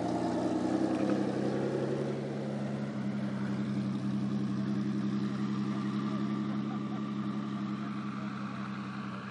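Engine of a modified Ford Mustang II running at low, steady revs as the car drives off, the sound slowly fading over the last few seconds as it draws away.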